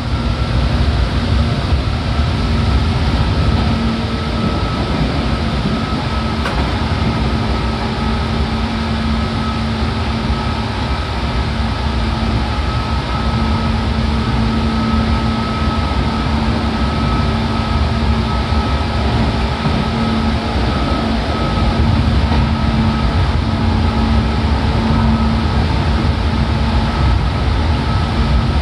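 Seibu 4000 series electric train running at steady speed, heard from inside the car: a continuous rumble from the wheels and running gear, with a steady motor-and-gear hum.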